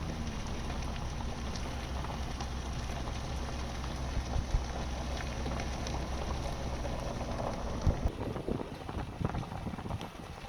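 Vehicle interior noise from a moving pickup truck: a steady low engine and road hum. About eight seconds in the steady hum drops away and uneven bumps and rattles take over.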